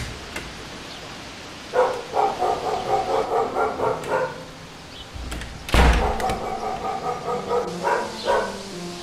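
An animal calling in two bouts of quick, pitched, pulsing cries, each a couple of seconds long. A dull thump comes as the second bout begins.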